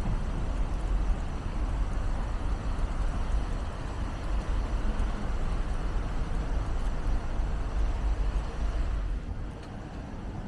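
Road traffic: vehicles passing with a steady low rumble, which eases off near the end.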